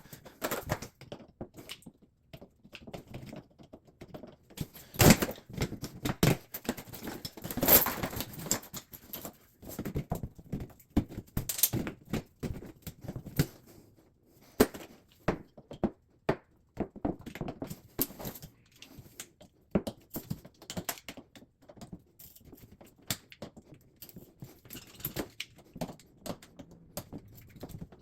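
Irregular clicks, taps and knocks of hand tools and shower-valve trim parts being handled and fitted, with a few louder knocks about 5, 8 and 12 seconds in.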